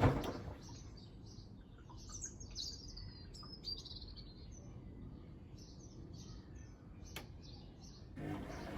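Birds chirping faintly over a low, steady rumble. A much louder rumbling noise comes back near the end.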